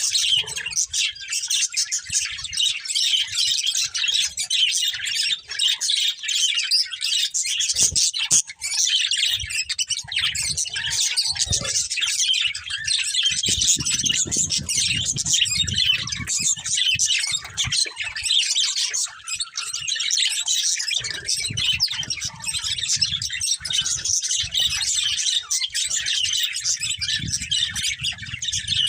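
Several budgerigars chirping and chattering at once, a dense run of rapid high chirps without a break.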